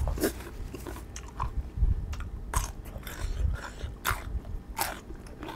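Biting and chewing crisp raw vegetables eaten with a spicy raw shrimp salad, with several sharp crunches, the loudest about 2.5, 4 and 5 seconds in.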